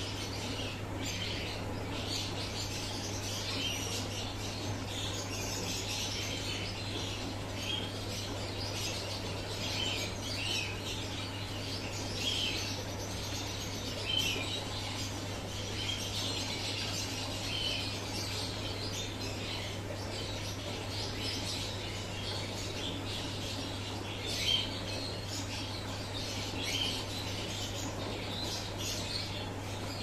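Small birds chirping and twittering without pause, many short high chirps overlapping, with a few louder chirps standing out. A steady low hum runs underneath.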